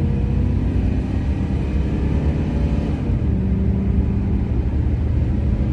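V8 exhaust of a 1979 Lincoln Continental Mark V with its catalytic converters and resonator removed and a MagnaFlow muffler fitted, the car accelerating. The low rumble rises a little in pitch, drops about halfway through, then holds steady.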